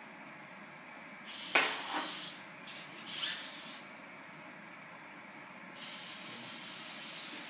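Two sharp mechanical clicks about a second and a half in, half a second apart, the first the loudest sound here, then a short scraping rustle and, from about six seconds in, a faint steady high-pitched whine, over constant hiss.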